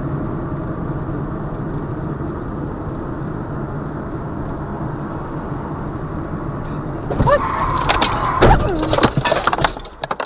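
Car interior road and engine noise from a dashcam while driving. About seven seconds in comes a louder burst of sharp knocks and clatter with a few short gliding squeaks, as the car ends up stopped close behind another car.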